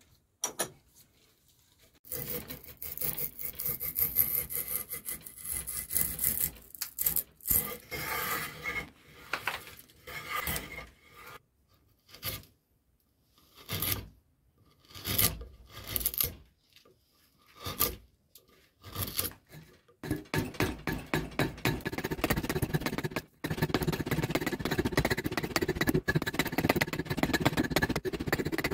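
A knife blade shaving and scraping an acacia wood handle, in repeated rasping strokes. In the middle the cuts come singly, about a second apart; near the end the scraping turns rapid and almost continuous.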